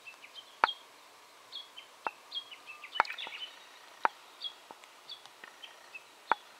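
Outdoor ambience: a small bird chirping over and over in short, high calls, with a few sharp clicks scattered through, the loudest about half a second in.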